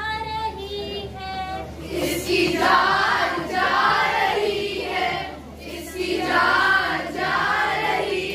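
Children singing: one child's voice sings a line alone, then from about two seconds in a group of children sings together in chorus.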